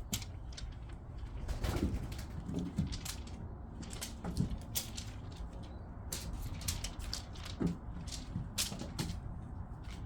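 Crinkly kashakasha cat teaser toy rustling and crackling in short irregular bursts as it is waved, with a few soft low-pitched calls between them.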